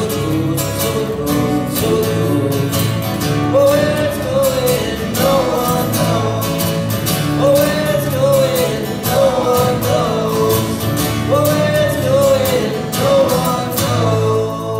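Live acoustic band: three acoustic guitars strumming steady chords while voices sing the melody.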